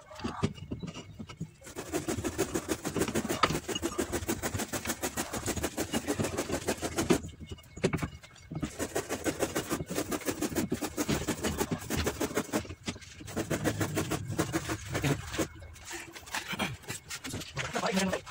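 A Suzuki Alto's rear brake drum being worked by hand onto the hub over new brake shoes, metal rubbing and scraping in rapid strokes. It comes in several spells with short pauses between them.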